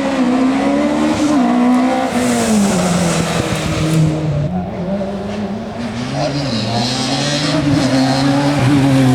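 Hillclimb racing car's engine under hard acceleration, its pitch climbing and dropping repeatedly with throttle and gear changes, with tyres squealing in the second half.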